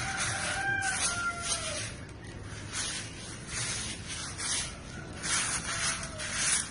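Repeated rubbing and scraping noise of a phone being handled as it films, coming in uneven swells. A faint gliding whistle-like tone sounds in the first second or two.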